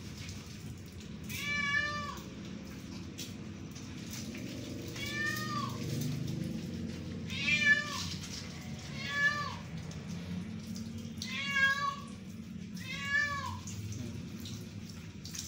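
A wet kitten meowing six times, every couple of seconds, each call rising and falling in pitch, in protest at being bathed.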